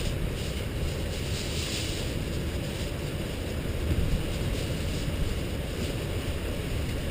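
Wind buffeting the microphone in a rainstorm: a steady low rumbling rush with a lighter hiss above it.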